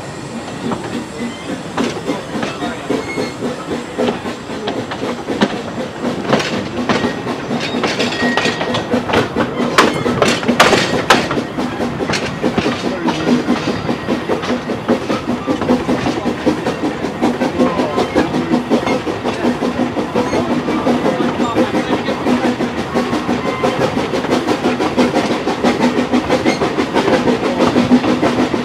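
Narrow-gauge steam locomotive on the move, heard from its footplate: a steady rhythm of exhaust beats and wheels clicking over rail joints, growing louder through the run. A few sharp metallic knocks come about ten seconds in.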